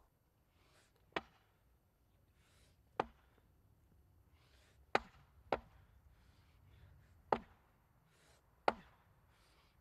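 Six sharp knocks, irregularly spaced one to two seconds apart, with two close together in the middle, and faint rustling between them.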